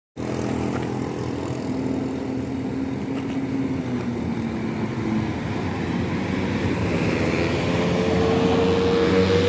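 Bus engine running with a steady drone that grows slowly louder. A steady higher tone joins it about eight seconds in, rising slightly in pitch.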